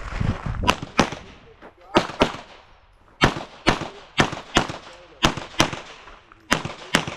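Pistol gunfire from a competitor shooting a USPSA stage: twelve shots fired as six quick pairs, each pair a fraction of a second apart and the pairs about a second apart, each shot followed by a short echo.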